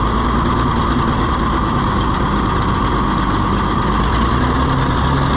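Oliver 70 tractor's six-cylinder engine running steadily just after a repair, running better but still not perfect, with an exhaust leak the owner intends to fix.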